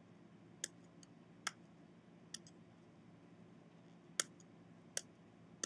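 Six or so isolated sharp clicks, spaced irregularly, from hands handling a plastic gel casting tray while peeling the sealing tape off its ends, over a faint steady hum.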